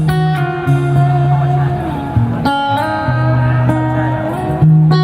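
Live band playing a song's instrumental intro, guitar to the fore over a held bass, with chord changes about two and a half seconds in and again near the end.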